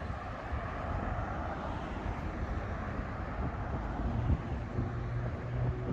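City street traffic: a steady rumble of vehicles, with a low steady hum coming in near the end.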